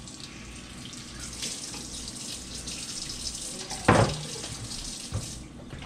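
Kitchen faucet running as a white baking dish is rinsed under it in a metal sink, with a single sharp knock about four seconds in.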